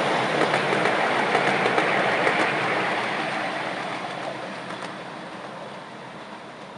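A 7¼-inch gauge miniature railway passenger train rolling past on its track: a steady rumble of small wheels on the rails with light clicks, fading away as it moves off.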